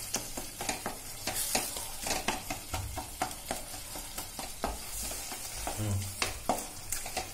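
Wooden spatula stirring and scraping a tomato and chilli-powder masala sautéing in a stainless steel kadai. A light sizzle runs under frequent short clicks of the spatula against the pan. The tomatoes have cooked down soft.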